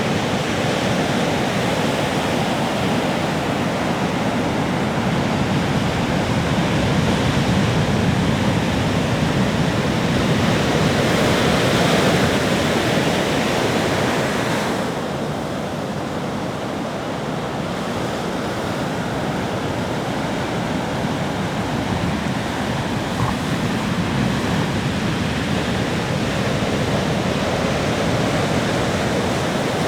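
Ocean surf breaking on a beach, a continuous rushing wash that swells to a peak about twelve seconds in and falls away a few seconds later.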